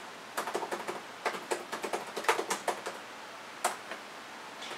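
Typing on a laptop keyboard: a quick run of key clicks for about two and a half seconds, then a pause and a single keystroke.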